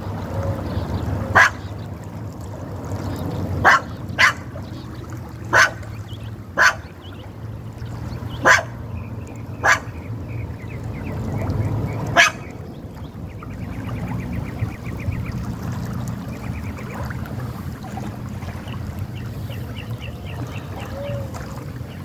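A dog barking: about eight short, sharp barks at uneven gaps through the first half, then quiet. Under them a steady low rush of flowing creek water.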